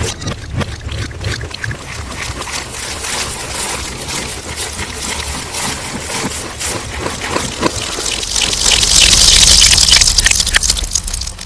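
Slime sounds, distorted: a dense run of wet clicks and crackles that gets louder from about eight seconds in and cuts off abruptly near the end.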